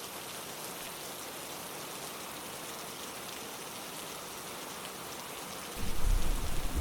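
Steady heavy rain falling, an even hiss of drops. Near the end a low rumble of thunder comes in and grows louder.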